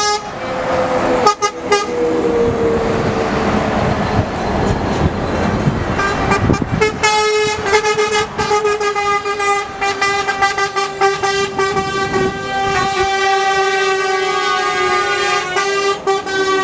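A line of lorries driving past, engines and tyres, with horns sounding. From about six seconds in, a horn is held in one long steady blast for about ten seconds.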